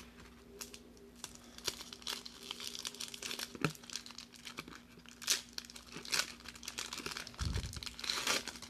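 Foil wrapper of a 1994 Pacific Triple Folders football card pack crinkling irregularly as it is handled, then being torn open near the end.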